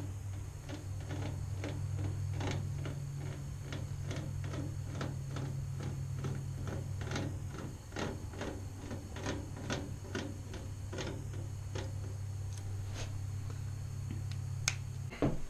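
A marker tip ticking over the holes of a sheet of hex-pattern grille mesh as a cutting line is drawn across it: an irregular run of small clicks, two to four a second. A steady low hum underneath stops near the end.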